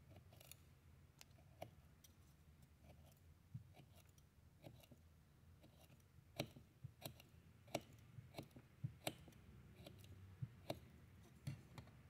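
Boker Kwaiken's VG-10 knife blade chopping through braided cord on a wooden board: a string of short, sharp snips and clicks at an uneven pace. They grow louder and come closer together about halfway through.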